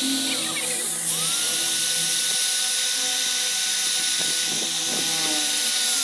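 Handheld high-speed power tool whining steadily as it works over a motorcycle engine's crankcase. Its pitch sags about half a second in and climbs back up a second in. A few short scraping ticks come between four and five seconds.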